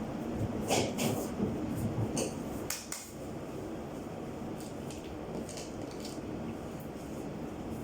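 A few sharp metallic clinks and knocks in the first three seconds, like tools and metal parts being handled, then a steady background hum.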